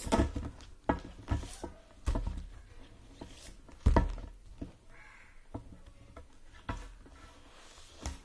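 Paperback activity books being handled and swapped by hand: a handful of irregular soft knocks and thumps with the rustle of card covers, the loudest near the start and about four seconds in.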